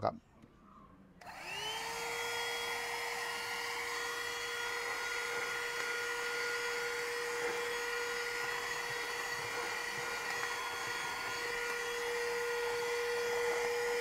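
Agaro HVC1081 cordless handheld car vacuum cleaner with a 110-watt motor, switched on about a second in: the motor whine rises quickly, then runs steadily at one pitch while it vacuums sand off a rubber floor mat with no nozzle fitted.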